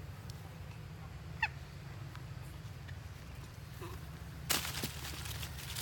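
Long-tailed macaques squealing during a wrestling scuffle with a young monkey: a short squeal about a second and a half in, then a loud, harsh screech about four and a half seconds in.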